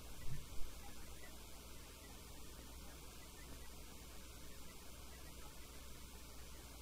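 Steady low electrical hum under quiet room tone, with a couple of faint soft knocks in the first second.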